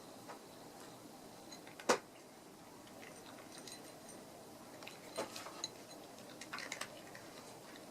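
A few light clicks and knocks of small hard objects: one sharp knock about two seconds in, then short clusters of clicks around five seconds and again near seven seconds.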